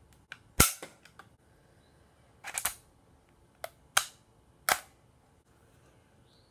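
3D-printed spring-plunger Nerf blaster firing and being cocked: a series of sharp plastic clacks, the loudest just over half a second in as the spring-driven plunger slams forward, then further clacks as the plunger is pulled back and set.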